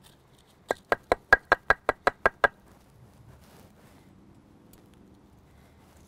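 Wooden block pounding plant material against a rock: ten quick, sharp knocks at about five a second, starting near the first second and stopping about two seconds later.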